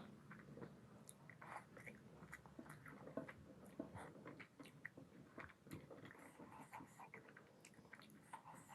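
Faint close-miked chewing of mutton curry and fried rice: irregular small clicks and smacks of a mouth eating.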